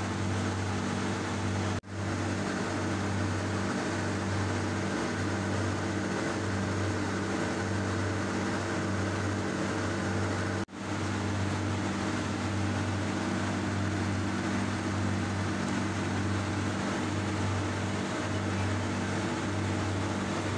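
Steady mechanical hum: a low drone with several constant tones over an even haze. It drops out for an instant twice, about two and eleven seconds in.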